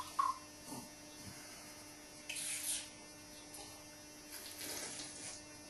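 Faint steady electrical mains hum. A short hiss comes about two seconds in and a softer one near the end.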